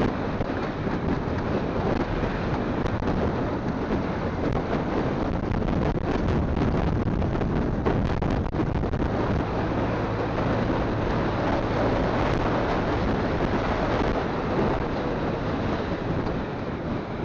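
Wind buffeting the phone microphone on a moving motorcycle: a steady rushing noise with the engine and road noise underneath.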